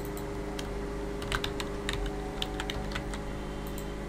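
Computer keyboard keys clicking as a short word is typed, a scattered run of keystrokes over a steady low hum.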